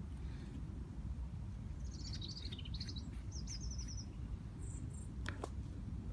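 A songbird sings a short run of quick, high repeated notes, followed a second later by a couple of brief chirps, over a steady low outdoor rumble. A couple of faint clicks come near the end.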